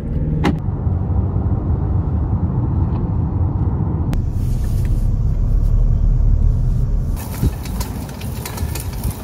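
Steady low road and engine rumble inside a car cruising on a highway. About seven seconds in it gives way to lighter outdoor noise with scattered ticks.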